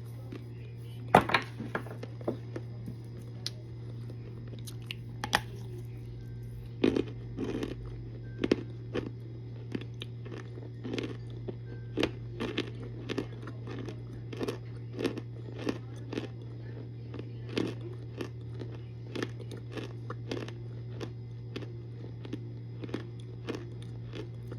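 Biting into and chewing hard cornstarch: a loud sharp crack about a second in, then a run of crisp crunching chews about every half second. A steady low hum runs underneath.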